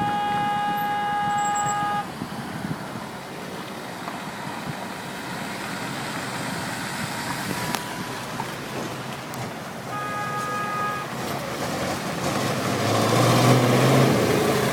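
Street traffic with vehicle horns: one horn held for about two seconds at the start and a second, shorter blast about ten seconds in. Near the end a vehicle engine grows louder as it comes close.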